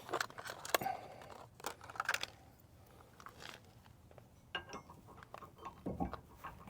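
Steel hitch pin and hitch adapter being handled and fitted into the trailer-hitch receiver: scattered light metal clicks and knocks, several in the first two seconds, then a quieter stretch and more small clicks with a soft thump near the end.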